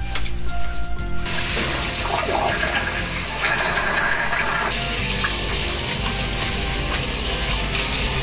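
Water running and splashing into a kitchen sink over freshly boiled butterbur stalks, which are being soaked in water to draw out their bitterness; it starts about a second in. Background music plays underneath.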